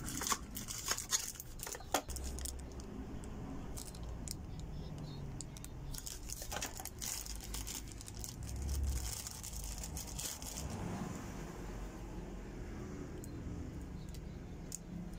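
Hands unwrapping small gadgets: clear plastic packaging crinkling and rustling, and a cardboard box with a plastic insert handled, with a few sharp clicks in the first two seconds.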